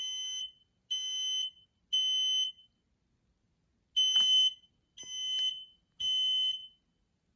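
Kidde FireX hardwired photoelectric smoke alarm sounding on test: the three-beep temporal alarm pattern, played twice with a pause between rounds. The horn's tone is pretty low pitched for a smoke alarm.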